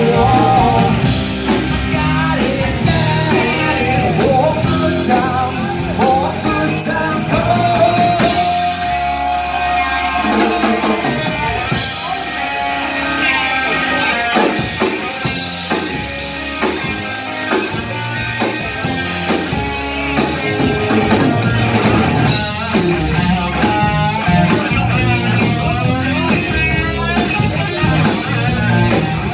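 Live rock band playing with electric guitars, bass guitar and a drum kit, with sung vocals over the top.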